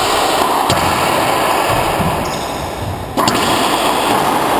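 Racquetball rally: two sharp smacks of the hollow rubber ball off racquet and walls, about two and a half seconds apart with the second louder, each ringing on in the enclosed court's heavy echo.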